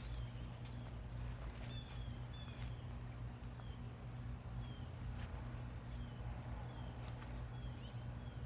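Quiet outdoor ambience: a bird repeating a short, high, falling chirp every second or so over a steady low hum.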